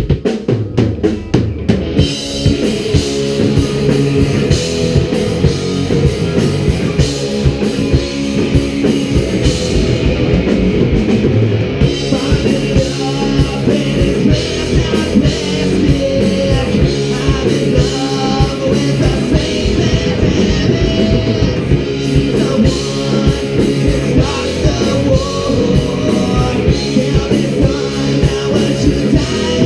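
Live rock band playing: drum kit, electric guitars and bass guitar. It opens with sharp drum hits, and the full band comes in about two seconds in, playing steadily at full volume.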